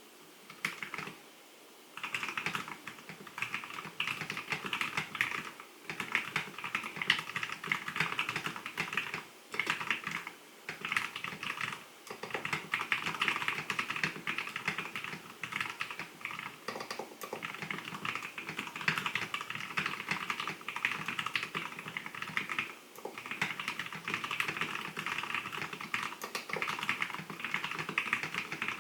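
Fast burst typing on a mechanical keyboard with lubed Cherry MX Brown switches: dense runs of key clicks and clacks lasting several seconds, broken by brief pauses. A few single keystrokes come first, then the continuous typing starts about two seconds in.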